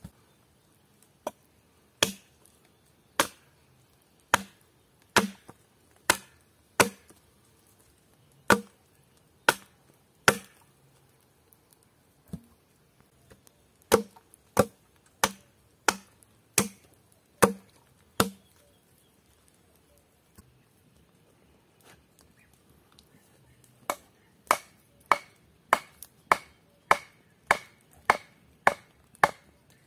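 Hatchet chopping a point onto a wooden stake: sharp single chops, roughly one a second, for most of the first eighteen seconds. After a pause of several seconds, a faster, even run of knocks as a stake is pounded into the ground.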